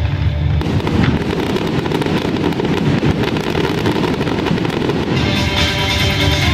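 Fireworks going off in a dense, continuous crackle of bursts over pop music. Near the end the crackling thins and the music comes to the fore.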